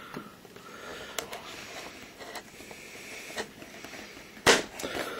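Fingers picking at the factory seal of a trading-card box: faint scratching and a few light clicks, then a sharp snap near the end as the seal breaks.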